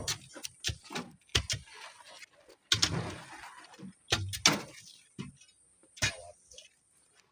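Irregular sharp knocks and clatters, a dozen or so, with a couple of longer scraping rushes between them, about three and four and a half seconds in.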